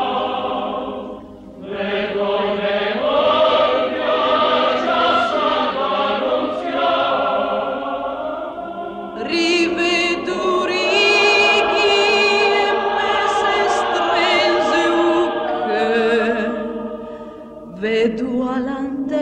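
Choir singing a slow song in Genoese dialect, several voices in harmony, with short breaks between phrases about a second and a half in and again near the end.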